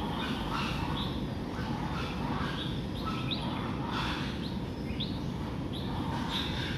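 Short high-pitched animal chirps, some sliding in pitch, repeating irregularly about once or twice a second over a steady low background rumble.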